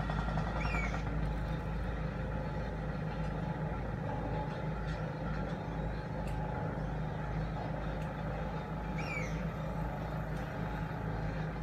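Steady low rumble of construction machinery and road traffic passing by. Two brief bird chirps come through, about a second in and again about nine seconds in.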